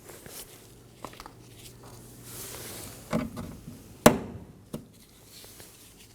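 Plastic locking clips clicking as they are pushed into the door and turned clockwise: four sharp clicks, the loudest a little past the middle, with a short rustle before them.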